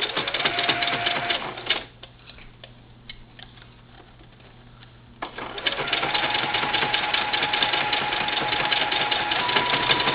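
Singer Futura sewing machine stitching through velcro: rapid needle clatter that stops about two seconds in, a few faint clicks, then starts again about five seconds in and runs steadily with a high motor whine.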